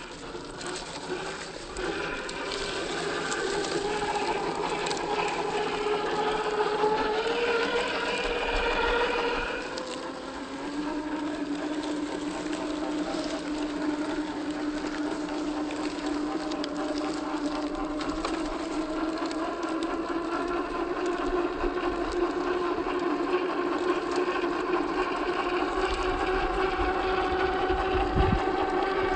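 Electric motor and gear drivetrain of a 1/10 scale RC crawler on a Boom Racing BRX01 chassis whining as it drives. The pitch climbs for several seconds, drops about ten seconds in, then rises slowly again with the throttle.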